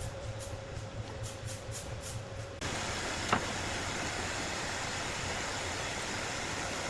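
Sawmill machinery running with a steady mechanical hum and regular light ticks. About two and a half seconds in, it changes abruptly to a louder, even running noise, with one sharp click shortly after.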